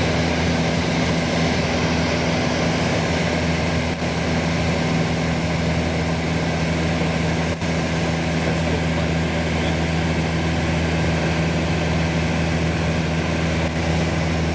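Light single-engine propeller airplane in level flight, its engine and propeller droning steadily at a constant low pitch, heard from inside the cabin.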